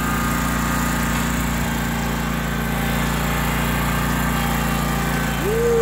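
Wright Stander X stand-on mower's engine running steadily at an even speed.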